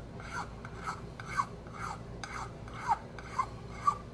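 Small flat needle file rasping across the briar bowl of a Dunhill 305 pipe in short, even strokes, about two a second, each stroke with a faint falling squeak. The file is smoothing away a ridge on the bowl left by a crack repair.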